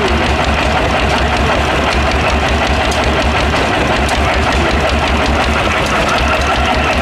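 Vintage single-cylinder stationary engines running with a steady, even beat and light mechanical clicking.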